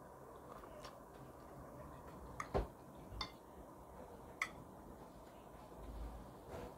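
A few sharp clicks of a metal fork against a plate, the loudest about two and a half seconds in, over a faint steady hum.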